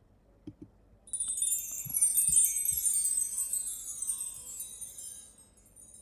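A sampled chime tree (mark tree) from GarageBand's Orchestra Kit playing one sweep: a bright shimmer of many small bell tones that begins about a second in, runs down in pitch and fades out over about four seconds. A few soft clicks come before and under it.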